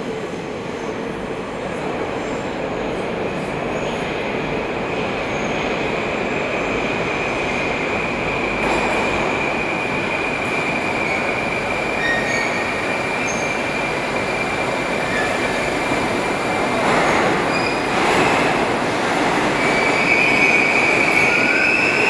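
81-765 "Moskva" metro train pulling into the station: a dense rumble that grows louder as it comes in, with a steady high whine over it. Near the end a sharper, higher squeal comes in as the train brakes alongside the platform.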